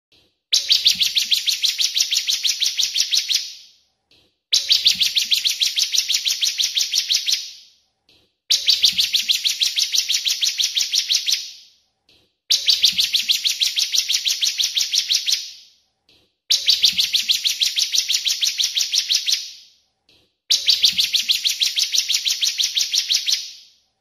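Ciblek kristal (bar-winged prinia) song played as a loop: a fast, even trill of high notes, about ten a second and three seconds long, opened by a brief lead-in note and repeated six times at four-second intervals.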